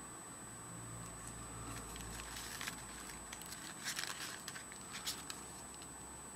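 A page of a small spiral-bound paper notepad being flipped over by hand: a few seconds of paper rustling with sharp crinkles, over a steady background hiss.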